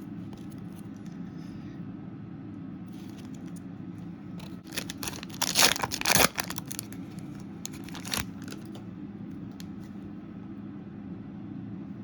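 Foil trading-card pack wrapper being torn open and crinkled: a couple of seconds of loud rustling about halfway through, then a short crackle near 8 s, over a steady low background hum.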